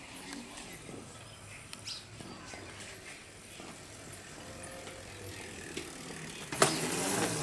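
Small electric children's dirt bike running, with a faint motor whine and its tyres rolling over concrete. About six and a half seconds in, a sudden louder rush of noise starts and carries on.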